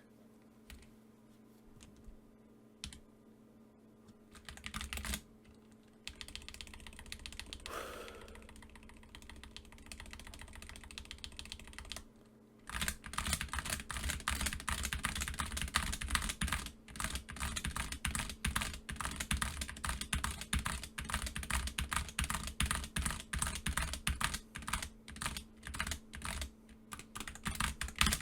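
Computer keyboard being typed on: a few scattered key presses at first, then from about halfway through fast, continuous typing. The keys squeak as they are pressed.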